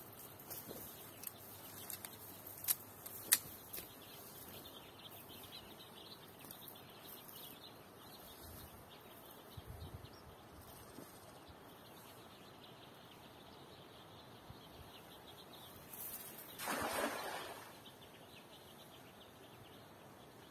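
Quiet riverside background with faint bird chirps and two sharp clicks a few seconds in. About 16 seconds in comes the loudest sound, a rushing splash lasting about a second and a half: a cast net landing on the river.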